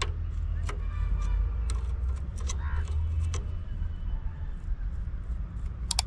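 Scattered small metal clicks and clinks from a spanner working the 10 mm nut and bolt at the tip of a motorcycle silencer, heard over a steady low rumble.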